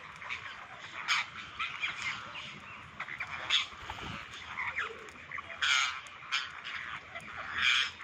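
A flock of parakeets calling all at once: a dense chatter of overlapping squawks, with a louder harsh screech about every two seconds.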